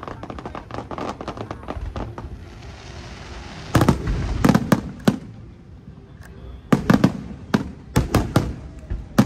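Aerial firework shells bursting in a rapid volley of sharp bangs and crackles. A rushing hiss comes about two and a half seconds in, then a new run of heavy booms from about four seconds on.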